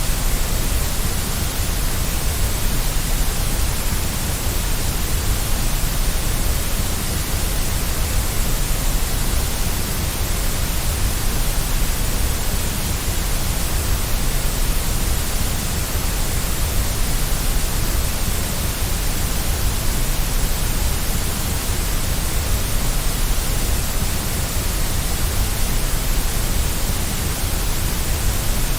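Steady white noise of the kind played to settle a baby to sleep: an even, unchanging hiss with extra weight in the bass.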